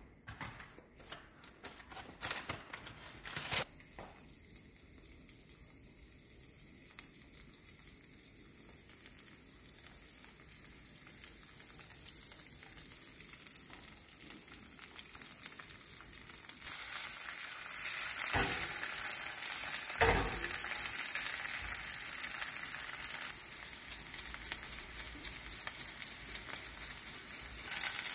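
Diced onion and bacon frying in oil in a nonstick pan: a faint sizzle that grows and then turns much stronger about two-thirds of the way in, as the torn bacon goes in. A few knocks of handling come near the start and twice more after the sizzle strengthens.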